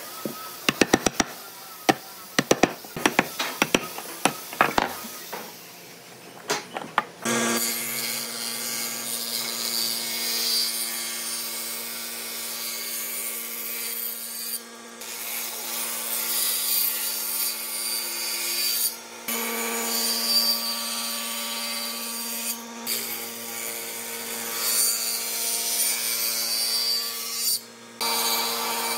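Chisel cutting into a pine joint, a run of sharp knocks, for the first few seconds. Then a circular table saw runs steadily with a fixed hum, its blade cutting pine boards, breaking off briefly a few times.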